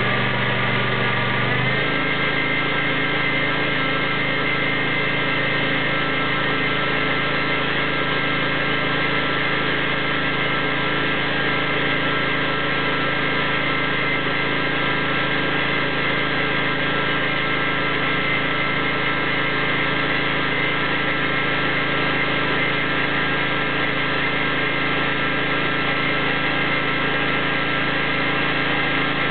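Craftsman riding mower's 24 hp Briggs & Stratton V-twin engine running at a steady high speed during a burnout, its pitch stepping up slightly about a second and a half in and then holding.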